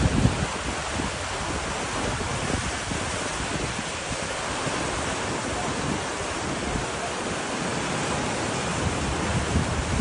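Muddy floodwater of a wadi in spate rushing past, a steady, even rush of water, with wind buffeting the microphone at the start and near the end.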